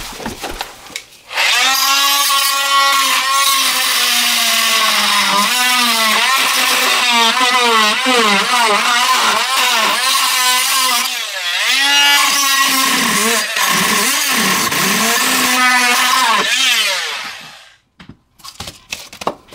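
Fein MultiMaster oscillating multi-tool with a wood-and-metal blade undercutting drywall and a metal corner bead. It runs for about sixteen seconds as a steady whine whose pitch dips again and again as the blade bites under load, then stops near the end.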